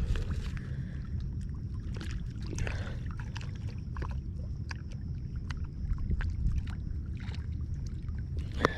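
A steady low rumble with scattered small clicks and taps: hands baiting a fishing hook with a piece of shrimp.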